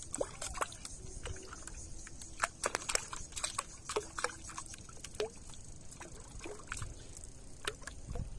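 Water sloshing and splashing around a floating plastic bottle as it bobs and jerks, with irregular small splashes and drips. The loudest splashes come between about two and four seconds in. It is the sign of a hooked fish tugging on the bottle trap's line.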